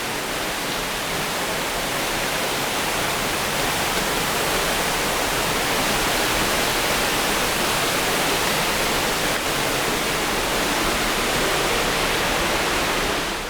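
Waterfall pouring, a steady loud rush of falling water with no change in level.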